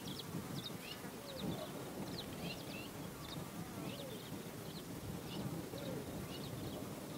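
Wild birds chirping over and over in short high notes, with a few fainter lower calls rising and falling now and then.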